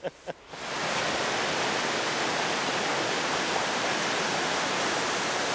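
Steady rush of fast-flowing creek water, coming in abruptly about half a second in.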